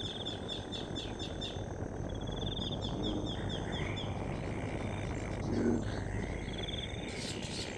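Outdoor nature sounds: short trains of rapid, high chirps repeating, with a longer thin tone joining about halfway, and one short low croak about three quarters of the way in.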